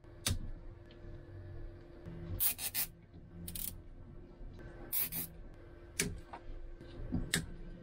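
Electrical wires and cables being handled and rubbed against each other by hand while a wire is connected at a boat's power distribution bar: a series of short scraping rustles, over a faint steady hum.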